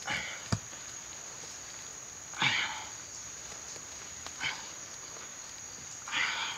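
Hands scraping and scooping damp sand in short strokes, four of them about two seconds apart, with one sharp knock about half a second in. A steady, high insect buzz runs underneath.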